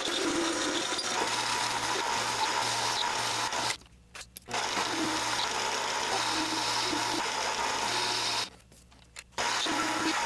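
Mini metal lathe running under a turning cut, a carbide tool taking a light cut on a 2.5-inch mild steel bar to form a shoulder: a steady motor and drive hum with cutting noise, a heavy job for so small a lathe. The sound drops out abruptly twice, about four and eight and a half seconds in, for under a second each.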